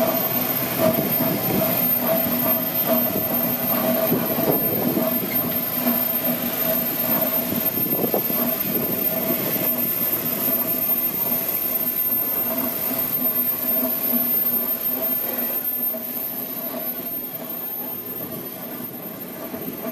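Steam showman's road locomotive moving slowly along a gravel track, its engine working with a steady hiss of steam and a mechanical running noise, over a steady hum. It grows a little quieter near the end.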